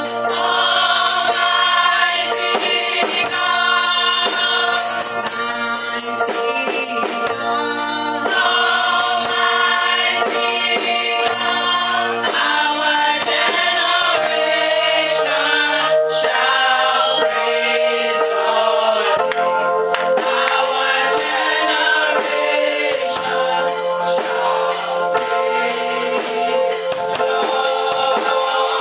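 Gospel choir singing in chorus with hand percussion, such as a tambourine, keeping a steady rhythm.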